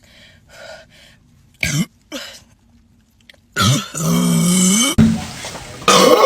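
A person burping and coughing after gulping fizzy Sprite. There is a short sharp burst about two seconds in, then a long, low burp with a wavering pitch lasting over a second, and more loud bursts near the end.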